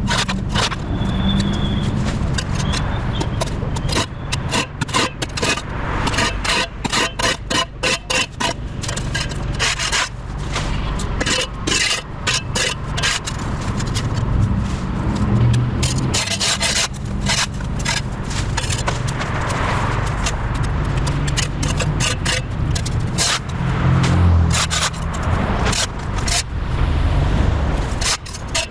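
Steel blade of a long-handled edging spade cutting and scraping packed dirt and overgrown turf along concrete steps and a walk, in many quick, rough strokes.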